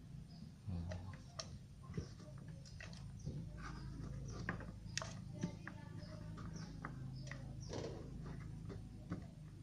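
Scattered light clicks and knocks of kitchen ingredients and utensils being handled, over a low steady hum.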